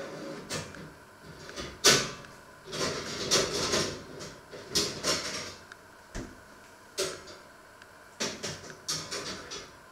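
Kitchen clatter from rummaging in a low cupboard: irregular knocks and rattles of cookware being moved, with rustling between them. The loudest is a sharp knock about two seconds in.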